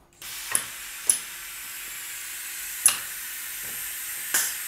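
Automated production line with gantry robot and handling station at work: a steady hiss starts just after the beginning, with four sharp mechanical clicks spread through it and a faint steady hum underneath.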